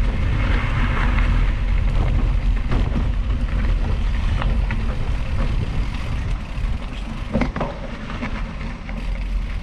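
Wind buffeting the microphone over gravel bike tires rolling on a gravel trail, a steady rumble with scattered small clicks and crunches, easing off near the end.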